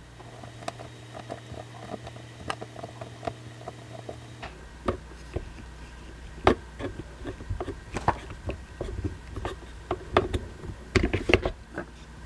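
Scattered light taps and clicks of plastic Play-Doh tools and toys being handled on a tabletop, growing busier in the second half.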